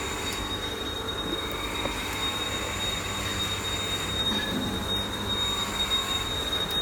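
Steady machine noise with a low hum and a constant high-pitched whine.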